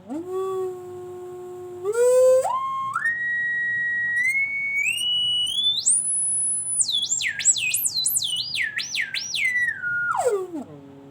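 A whistle-like tone that climbs in distinct steps from low to very high pitch, then warbles quickly up and down several times near the top before sliding back down near the end.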